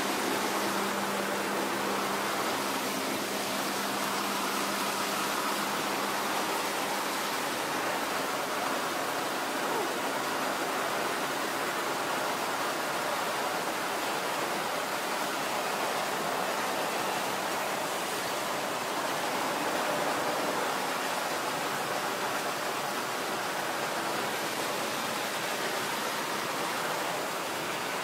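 Fire hose streams spraying water onto rubble and splashing: a steady rushing hiss. A faint low hum under it fades out after several seconds.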